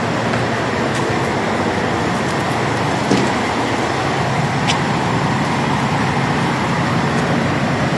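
Steady noise of running vehicle engines and road traffic, an even hiss with no breaks.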